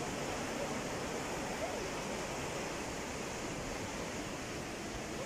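Steady wash of sea surf, an even rushing noise without any distinct breaks.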